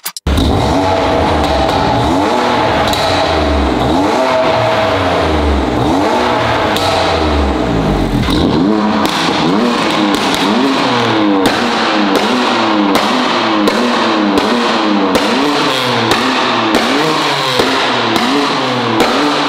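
BMW F82 M4's S55 twin-turbo straight-six revving stationary with its exhaust valves open, through custom high-flow downpipes and a pop-and-bang ECU map. Longer rev sweeps at first, then quick repeated blips from about halfway, with sharp pops and cracks on the overrun as each blip falls.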